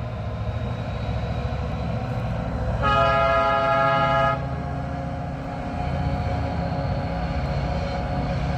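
Train passing with a low, steady rumble. Its horn sounds once, about three seconds in, for about a second and a half.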